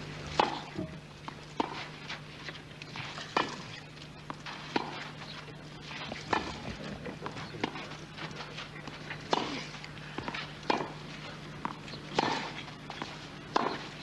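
Tennis rally on a clay court: a ball struck back and forth by racquets, a sharp pock roughly every one and a half seconds, about ten hits in all. A steady low hum runs underneath.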